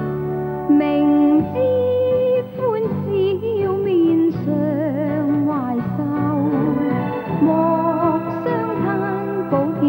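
A TV drama's sung theme song: a solo voice carries a slow melody with vibrato over a steady band accompaniment.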